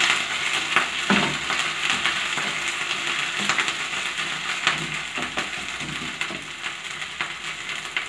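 Sliced onions sizzling steadily in hot mustard oil in a frying pan. A wooden spatula stirs them, scraping and tapping against the pan now and then.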